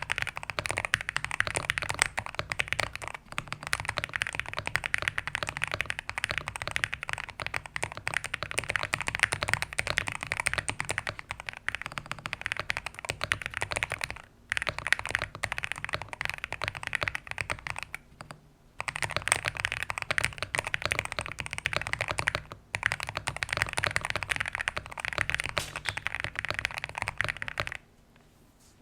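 Typing on a Zuoya GMK67 mechanical keyboard with KTT Kang White V3 linear switches, GMK First Love clone keycaps and a tape mod with foam. There is a rapid, continuous clatter of keystrokes, with brief pauses about 14, 18 and 22 seconds in. The typing stops about a second before the end.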